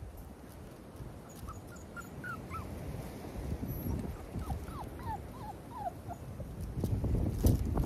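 Six-week-old XL pitbull puppies whimpering and yipping, a string of short high whines. Wind rumbles on the microphone throughout and grows louder near the end.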